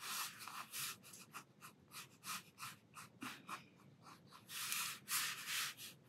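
Sakura Pigma Micron fineliner pen scratching across watercolour paper in a run of short strokes, with two longer strokes near the end.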